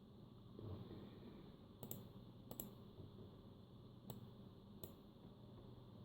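Four short sharp clicks of computer pointing-device buttons, falling in two pairs, over faint room tone.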